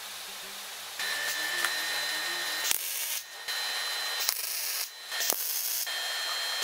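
MIG welding arc sizzling, starting about a second in and running in several stretches broken by short pauses.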